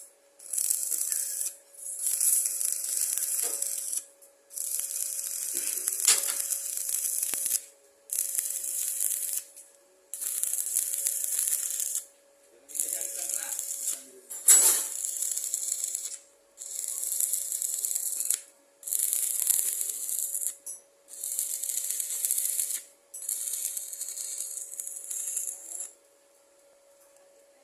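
Electric stick welding: the arc crackles and hisses in about eleven short runs of one to three seconds each, with brief pauses between as it is struck again. A faint steady hum sits underneath.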